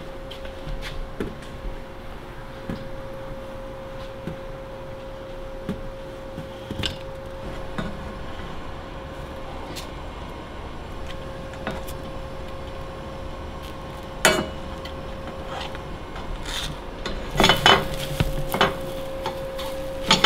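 A slotted spatula scraping and tapping in a frying pan as scrambled eggs are stirred on a gas stove, with a louder clatter of knocks about two-thirds of the way in and a few more near the end. A steady faint tone runs underneath.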